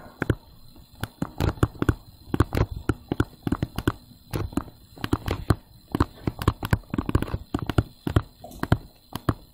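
Stylus tapping and scraping on a tablet's touchscreen while handwriting block capitals: an irregular run of sharp taps, several a second.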